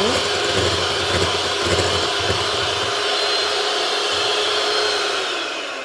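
Handheld electric mixer running steadily, with a motor whine, as its twin beaters whip a thick cream-cheese and double-cream mixture in a glass bowl until fluffy. The motor winds down and stops near the end.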